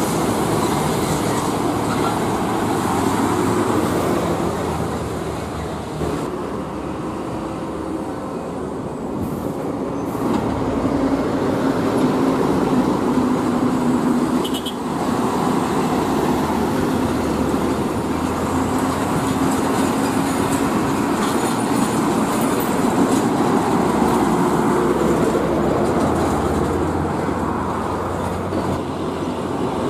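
Heavy diesel trucks passing on a toll road: a steady engine drone with tyre and road noise that swells and eases slightly as the trucks go by.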